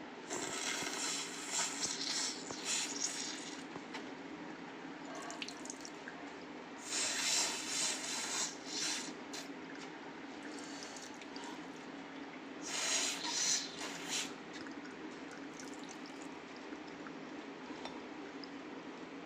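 A person with a head cold and a runny nose blowing and sniffling wetly, in three bursts of a second or two each, over a steady low hum.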